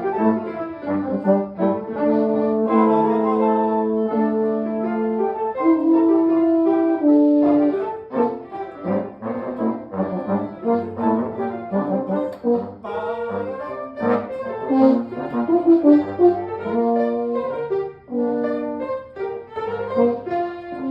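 Instrumental ensemble music with brass to the fore. There are long held chords for the first few seconds, then shorter, accented notes in a marked rhythm.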